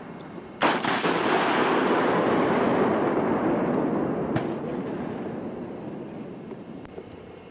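A single heavy blast from 84 mm Carl Gustaf recoilless rifle fire about half a second in, followed by a long rolling rumble that slowly fades over several seconds.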